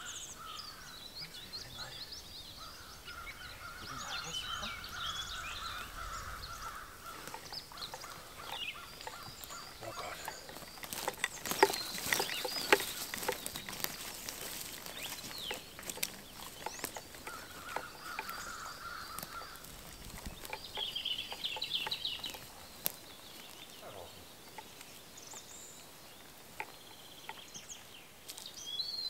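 Woodland birds calling and singing, with a stretch of footsteps crunching and twigs snapping on the forest floor about halfway through.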